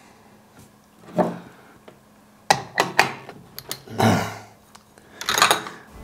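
Metal clicks and knocks from handling a La Pavoni Professional lever espresso machine, with its lever raised for pre-infusion near the end. There are short hisses about four seconds in and again near the end.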